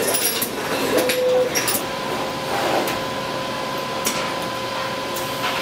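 Workshop machine noise: a steady hum with a faint whine, and scattered sharp clicks and knocks of metal parts being handled.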